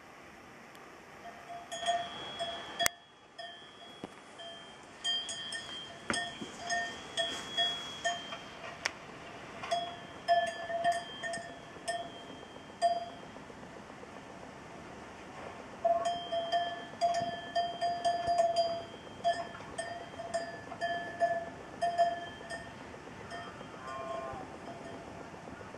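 Metal livestock bell clanking in irregular runs of strokes, each ringing at the same clear pitch. It falls quiet for a few seconds midway, then clanks again.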